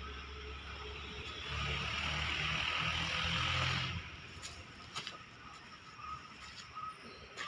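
A motor vehicle's engine running close by, louder for about two seconds before dropping away suddenly, over a low steady hum. A few faint clicks follow.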